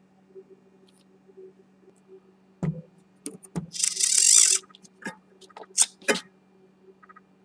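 Hands handling a 3D-printed plastic motor nacelle and its steel control rod: a series of sharp clicks and knocks, with a brief burst of rubbing or scraping about a second and a half in, then a few more clicks. A faint steady hum lies underneath.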